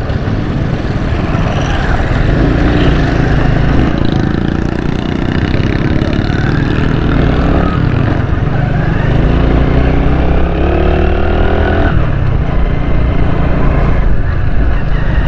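Small motorcycle engine running while riding, its pitch rising as the bike picks up speed and dropping back about twelve seconds in.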